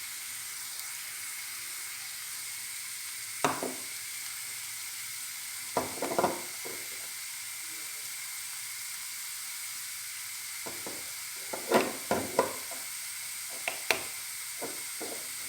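Chopped onion and garlic sizzling steadily in olive oil in a frying pan, with a spoon stirring and knocking against the pan a few times, most often in the second half.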